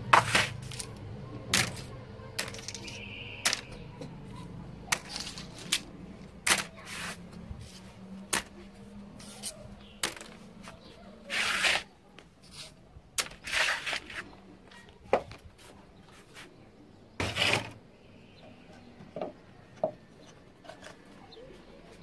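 Plastic clothespins clicking and clattering as they are picked up off a tiled floor and dropped into a plastic basket: irregular sharp clicks, with a few longer rattles of a handful of pins.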